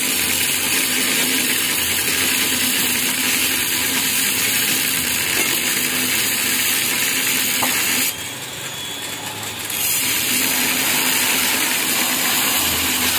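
Gas cutting torch running with a steady hissing flame as it cuts into a steel motorcycle muffler to remove its internal baffles. It drops quieter for about two seconds a little past the middle, then picks back up.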